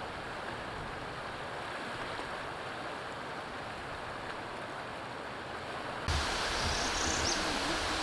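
Steady rush of river water running over rocks. About six seconds in it cuts to a louder, hissier rushing, with a few faint low knocks.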